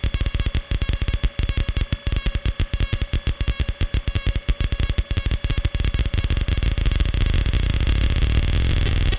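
Handmade 4093 CMOS quad-oscillator sound generator, fed through a spring reverb, putting out a fast, uneven stutter of clicks and pulses. About six seconds in, as a knob is turned, the stutter thickens into a dense, louder low buzzing drone.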